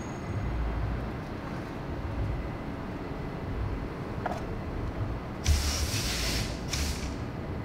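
Steady low outdoor rumble, broken by a loud burst of hissing about five and a half seconds in and a second, shorter hiss just before seven seconds.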